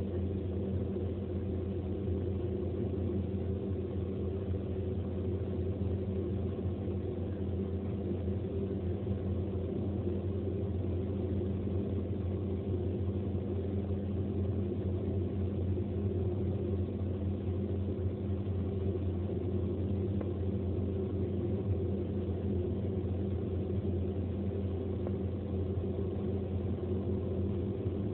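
Steady in-cabin drone of a car cruising on a motorway: engine and tyre noise with a low hum, unchanging throughout.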